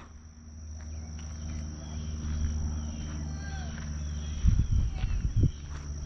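Insects calling in a steady high-pitched drone, with a few faint chirps. About four and a half seconds in comes a short cluster of low thumps.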